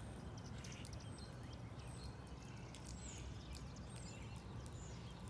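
Quiet outdoor street ambience: a low, steady rumble under many small birds chirping in short, high notes.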